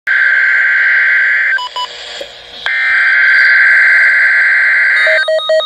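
Emergency Alert System SAME header data bursts: two harsh, buzzy electronic screeches, the second starting about a second after the first ends, with two short beeps in the gap. Near the end a fast-pulsing alert tone begins, alternating between pitches.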